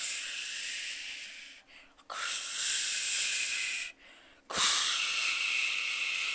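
A person imitating breaking waves with the mouth: three long hissing 'shhh' breaths, each a second and a half to two seconds long.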